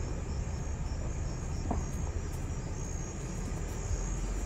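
Crickets chirring steadily in high, even pulses over the low, steady rumble of a slowly moving vehicle.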